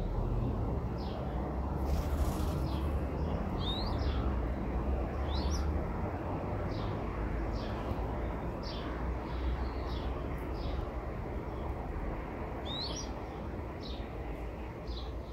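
Birds chirping, short high chirps about once a second, a few of them quick rising sweeps, over a steady low rumble of background noise.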